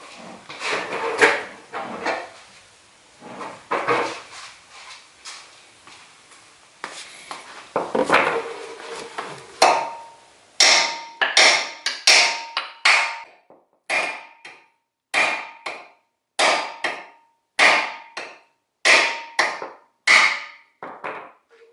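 Hammer blows on the steel steering arm of a VW Mk3's front suspension, knocking the outer tie-rod end's tapered stud loose. After a few irregular knocks and clatter, about ten seconds in a steady run of sharp strikes begins, nearly two a second, each ringing briefly.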